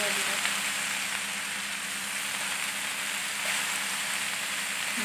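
Cubed eggplant and potato sizzling steadily in hot oil in a kadai.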